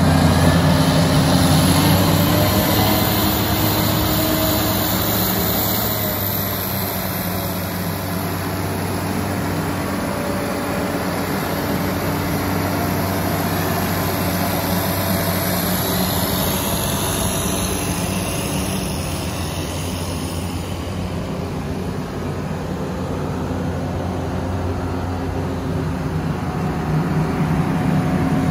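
Case IH 2166 combine harvester's diesel engine idling steadily, a little fainter in the middle and stronger again near the end.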